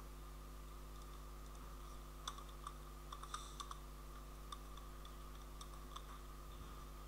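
Computer keyboard keystrokes, a dozen or so scattered clicks starting about two seconds in, over a faint steady low hum.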